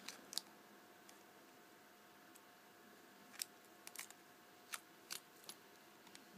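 Light, irregular clicks and ticks of small plastic phone parts being handled and pried apart, against near silence.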